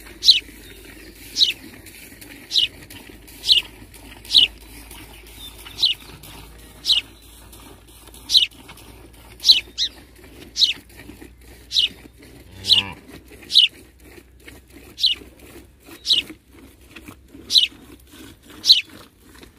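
A bird calling over and over: a short, high, falling note about once a second, twice given as a quick double note. There is a brief low sound just after the middle.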